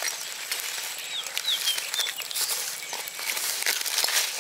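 Food frying in hot oil, a steady crackling sizzle with scattered pops. A few short bird chirps come between about one and two seconds in.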